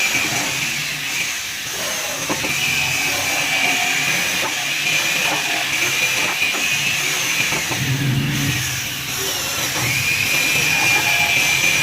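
A power tool motor running with a steady high whine over a rushing noise. The whine fades twice and comes back.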